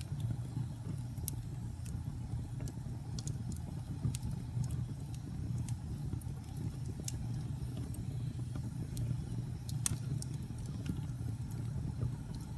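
Fire burning with a steady low rumble of flames and irregular sharp crackles and pops, one louder pop about ten seconds in.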